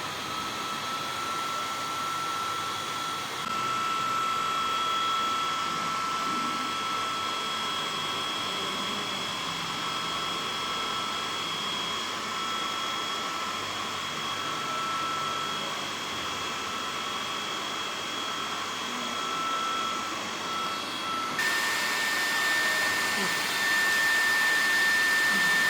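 A small electric motor running with a steady high whine. About 21 seconds in the pitch jumps higher and the sound gets louder.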